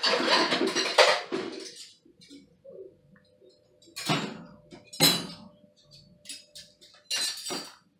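Stainless silverware clattering as a handful of forks and spoons is grabbed and handled, then a few separate metallic clinks as single pieces are dropped into the slots of a dishwasher's plastic silverware basket.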